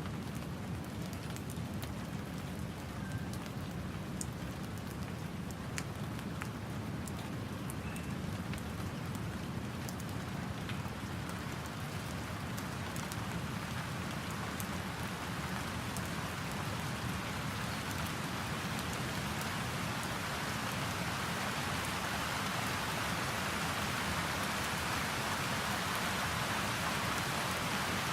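Tropical rain falling: light at first, with scattered individual drop ticks, then growing steadily heavier and louder through the second half. Under it runs a steady low rumble of nearby ocean surf.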